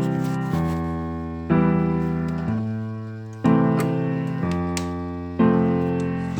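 Background music: slow piano chords, each struck and left to fade, with a new chord about every second.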